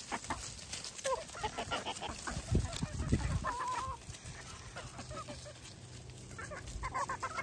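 Chickens clucking with short, scattered calls, and a wavering trill about three and a half seconds in. A couple of dull low thumps come between two and three seconds in.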